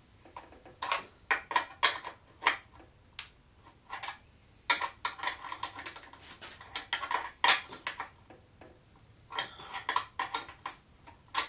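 A metal wrench clinking and clicking against the speedometer mounting bolts of a motorcycle as they are worked loose: sharp, irregular metallic clicks in short clusters with pauses between.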